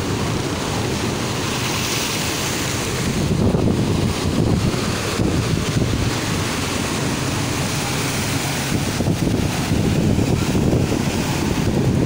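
Heavy surf breaking and washing against a seawall, a continuous crashing rush with wind buffeting the microphone. The surf swells louder about a third of the way in and again near the end.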